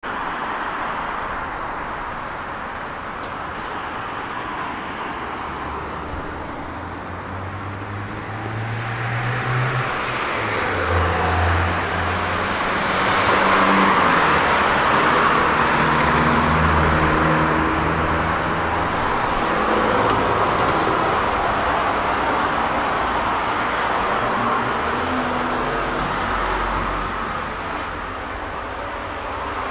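Road traffic on a city street: cars passing, with low engine hum, swelling louder and then easing off through the middle.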